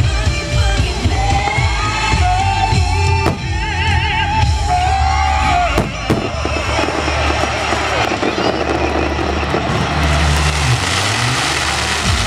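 Fireworks-show soundtrack music mixed with exploding fireworks. From about halfway the music thins and a dense stretch of bursts and crackle takes over.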